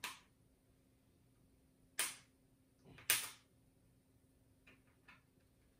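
Sharp clicks of small plastic ink-cartridge parts being pried and snapped as a chip is moved from an original Epson cartridge to a refillable one. There are three loud clicks, a second or so apart, then a few faint ticks.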